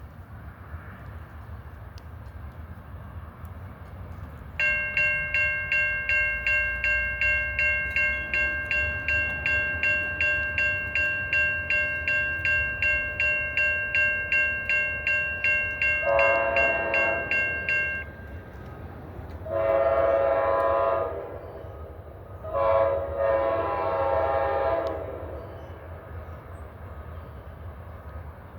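A bell rings steadily at about three strokes a second, starting about five seconds in. Near the end of the ringing a New Jersey Transit train's air horn sounds two long blasts and then a short-then-long one: the standard warning a train sounds on its approach to a road crossing. Low rumble and wind noise run underneath.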